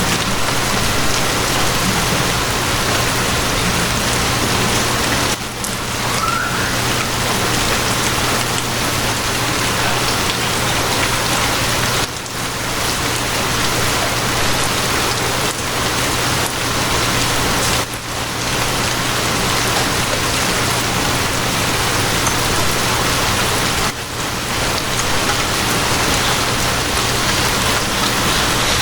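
Steady rain hissing, with a constant low hum beneath it. The level dips briefly about every six seconds.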